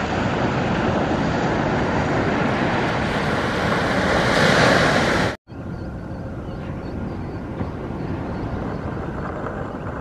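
Surf breaking and washing up the beach with wind on the microphone, the rush swelling to its loudest about four to five seconds in. After an abrupt cut about five seconds in, a quieter steady rush of wind.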